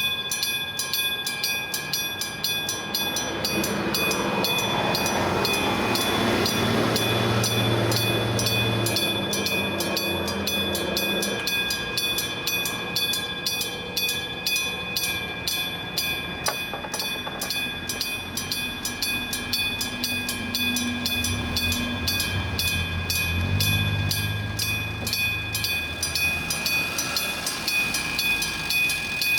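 Electric-bell level-crossing alarm: the bell on top of the crossing signal is struck rapidly and rings on without a break. Under it an electric train rumbles past on the rails, once for several seconds in the first third and again in the last third.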